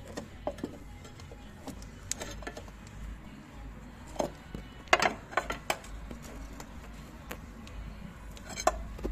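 Scattered metallic clinks and knocks from a pry bar working a car's suspension control arm, which moves back and forth in worn-out bushings.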